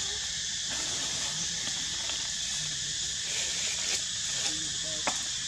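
Steady high hiss of outdoor ambience, with a few faint clicks and one sharper click about five seconds in.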